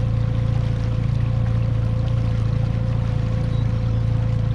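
Boat motor running steadily at trolling speed: a constant low drone with a steady higher hum above it.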